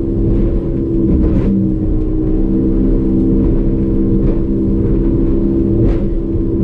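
150 hp Evinrude E-Tec two-stroke outboard running hard at a steady speed, a loud even drone. A few brief knocks cut through it, about a second and a half in and again near the end.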